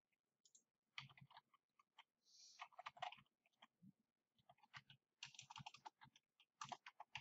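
Faint typing on a computer keyboard: quick key clicks in several short runs, starting about a second in.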